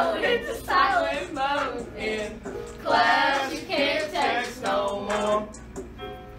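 Several girls singing together in unison. The singing stops about five and a half seconds in.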